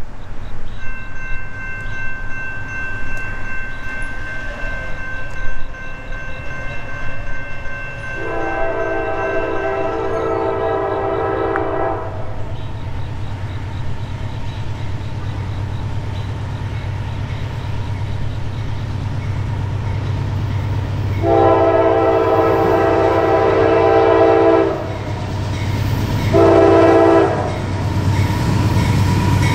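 Norfolk Southern GE AC44C6M diesel locomotive sounding its horn: a long blast, a second long blast, a short one, then the start of another long one, the standard grade-crossing signal. Under it is the growing low rumble of the locomotive as it approaches.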